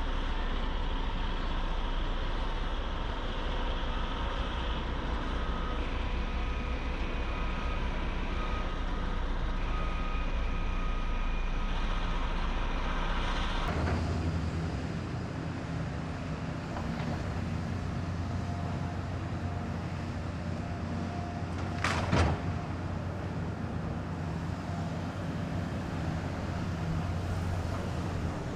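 Heavy construction machine engines running steadily on a work site, the sound changing abruptly about halfway through, with one sharp knock near the three-quarter mark.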